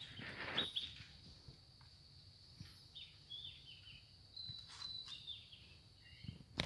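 Faint outdoor ambience: small birds give a few short chirps over a steady, thin high-pitched whine.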